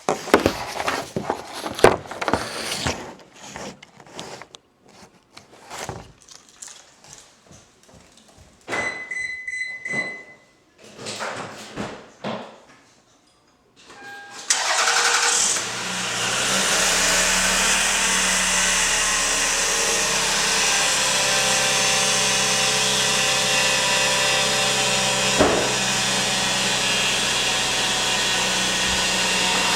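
Scattered clicks and knocks and a brief electronic chime, then the 2001 Lexus RX300's 3.0-litre V6 cranks and starts about halfway through and settles into a steady idle. Under the idle runs a steady whine, the noise the owner is showing.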